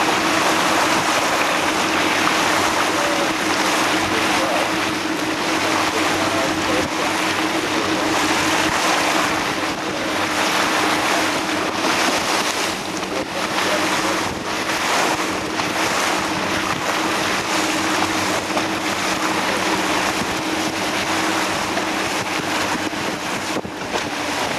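Speedboat under way: water rushing and hissing along the hull and bow wave, with wind buffeting the microphone and a steady engine hum underneath.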